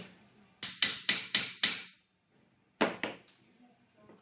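Claw hammer striking a small steel trunking offcut clamped in a bench vise, bending it over the jaws to a 90-degree angle: five quick, ringing metal blows, about four a second. About three seconds in comes another sharp knock, then a couple of lighter ones.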